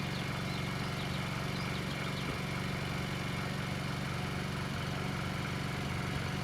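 Generator running at a steady speed, giving an even, unchanging hum.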